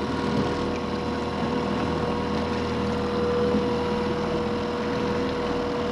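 Outboard motor running steadily while trolling, a constant hum with a steady tone in it.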